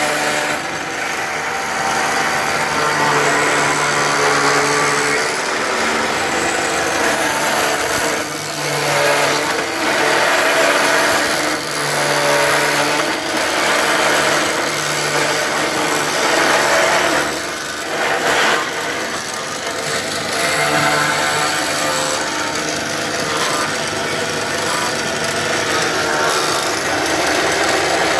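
Overhead spindle router's spinning cutter shaping a willow cricket bat blade: a steady motor hum under a loud rasping cut that swells and eases as the blade is fed along beneath it, dipping briefly a few times.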